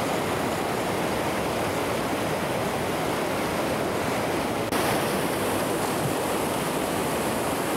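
River rapids rushing steadily, whitewater churning over rocks. The hiss turns abruptly brighter a little past halfway.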